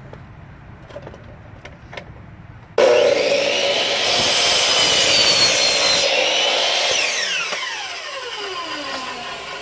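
Handheld power cutting tool switched on about three seconds in, running at speed while cutting clamp softeners. It is released about seven seconds in and winds down with falling pitch. A few small clicks come before it.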